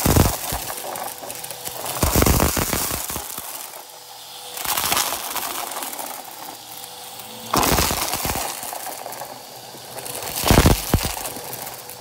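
Upright vacuum cleaner running on carpet and sucking up small hard plastic beads and toy pieces. It crackles and rattles in bursts as the nozzle passes over the pile, about five times, over the motor's steady hum.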